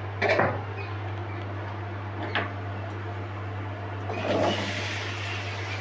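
A couple of light knocks, then about four seconds in, crab and potato pieces tipped from a steel bowl into hot mustard oil in a kadai, clattering in and starting to sizzle. A steady low hum runs underneath.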